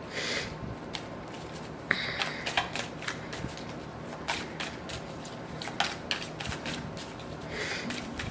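A deck of tarot cards being shuffled by hand: a run of light, irregular card clicks with a few soft sliding swishes.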